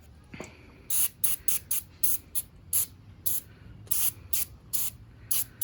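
Degreaser sprayed in about a dozen quick, hissing squirts from a hand spray bottle, two or three a second, starting about a second in.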